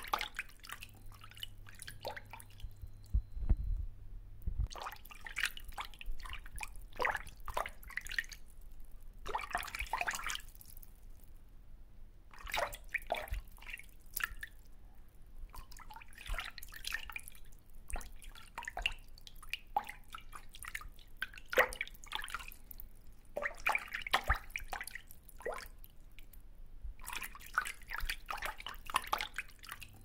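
Pond water dripping and splashing lightly at the surface in irregular clusters of small drips, each lasting a second or two and coming every few seconds.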